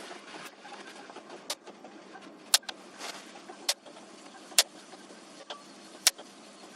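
Five sharp clicks at uneven intervals, roughly a second apart, over a faint steady hiss.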